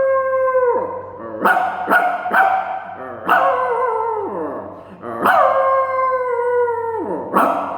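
A man imitating a dog howling: three long held howls, each dropping in pitch at the end, with short sharp yelps between them.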